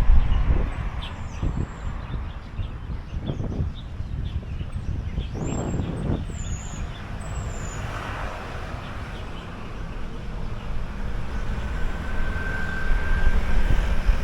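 Outdoor ambience with a low, steady rumble of traffic and wind. A few short, high bird chirps come about five to seven seconds in.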